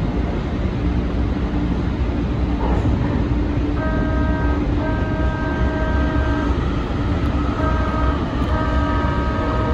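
Siemens light-rail train's horn sounding a series of blasts from about four seconds in (two longer, one short, then another long), over the steady rumble and hum of the car running along the track.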